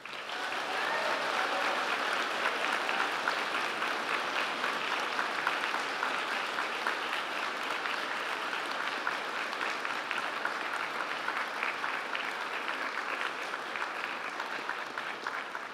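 Large crowd applauding: dense, steady clapping of many hands that starts all at once and thins slightly near the end.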